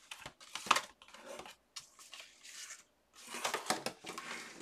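Sheets of paper and small cardstock pieces being handled: a series of short rustles and light taps, with one sharp snap under a second in and a denser patch of rustling about three seconds in.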